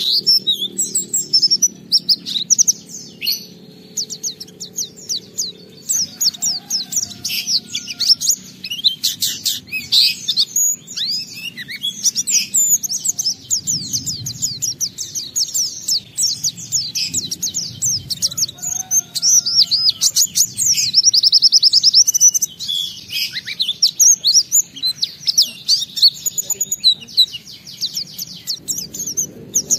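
White-eye (pleci) singing a long, rapid, high-pitched twittering song, packed with fast trills and varied phrases and broken only by brief pauses.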